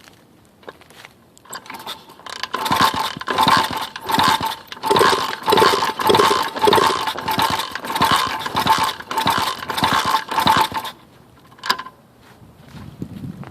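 A 110 cc pit bike's electric starter cranking the engine for about eight seconds, a whirring with an even pulse about twice a second, starting a couple of seconds in and cutting off suddenly. The engine does not catch: it won't start even with a freshly cleaned carburettor.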